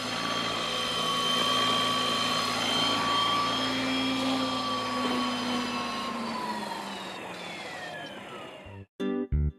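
Electric ALIGN T-REX 550X RC helicopter whining steadily from its motor and rotors, then winding down in pitch after it lands as the rotors spool down, until the sound cuts off. Guitar music starts near the end.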